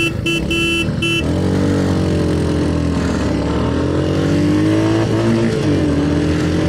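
Three short horn beeps in the first second, then the Royal Enfield Hunter 350's single-cylinder engine accelerating hard from the start of a drag race. Its note climbs, drops back at gear changes, and climbs again, over wind and road rush.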